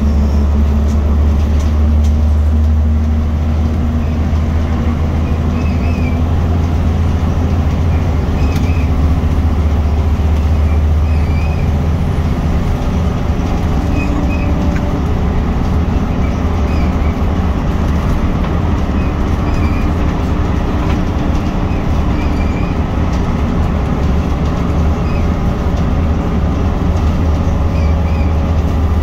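Interior noise of a Scania L94UB single-deck bus under way, heard from the passenger cabin: a steady low diesel engine drone with road and tyre noise. The deepest part of the drone eases a little about twelve seconds in.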